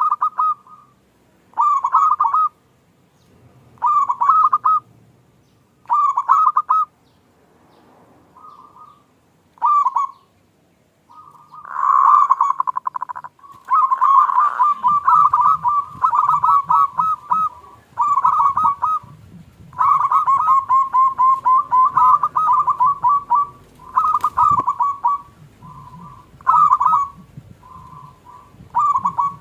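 Zebra dove (perkutut) cooing in repeated short phrases, with pauses of about two seconds between them at first. From about halfway through the calling becomes denser and almost unbroken, with overlapping phrases.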